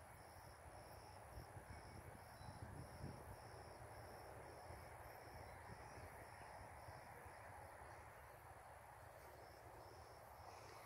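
Faint outdoor quiet with an insect chirping steadily in a high pitch, about two chirps a second, over a faint low rumble.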